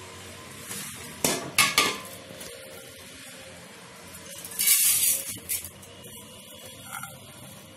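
Handfuls of oiled vermicelli (seffa) being lifted from a bowl and dropped into an aluminium couscoussier steamer basket, rustling and clattering lightly against the metal. There are two louder bursts, about a second in and again about five seconds in.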